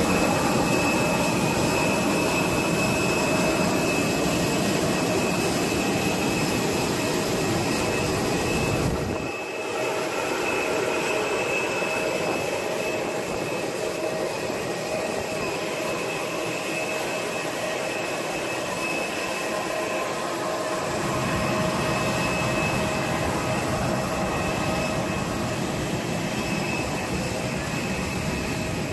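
Airliner jet noise on an airport apron: a steady, loud whine with a constant high tone over a broad rush. The low rumble beneath it eases about nine seconds in and returns near twenty-one seconds.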